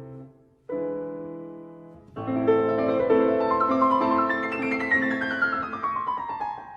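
Background piano music: a chord is struck and left to fade, more notes come in about two seconds in, and the passage ends in a falling run of notes.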